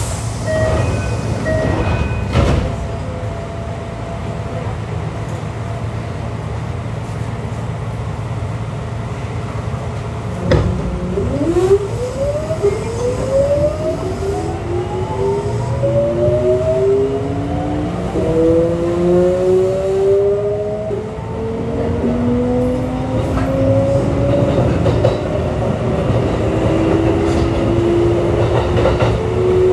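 Kintetsu 3200 series train's Mitsubishi GTO VVVF inverter whining as the train accelerates: from about ten seconds in, a cluster of tones rises in pitch in several steps. Under it runs a steady hum of the car's air conditioning and running noise.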